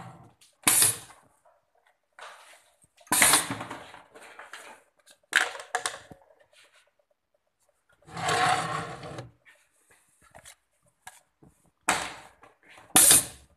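Pneumatic jaws of a benchtop semi-automatic laminate-tube sealer working. Sharp clacks and short bursts of compressed-air hiss come several times with quiet gaps between them. One longer hiss lasts about a second.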